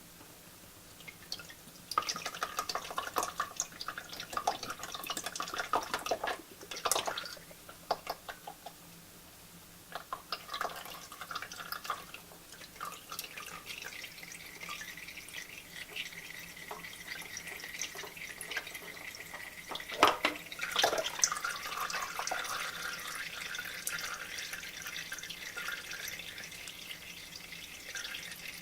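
Used engine oil dripping and trickling into a drain pan during an oil change: irregular drips and splashes at first, then a steady thin stream with scattered drops from about halfway through.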